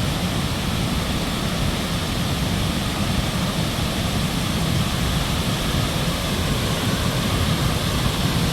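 Steady roar of Victoria Falls, the water thundering down without a break.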